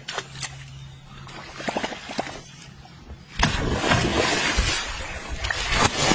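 A hooked catfish thrashing and splashing at the water's surface. The splashing starts suddenly about three and a half seconds in, after a quieter stretch with a few faint clicks.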